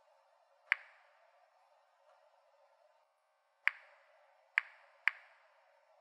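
Series 900 Mini-Monitor Geiger counter clicking four times at irregular intervals: once near the start, then three clicks close together in the second half. Each click is a single detected count of radiation from the bananas.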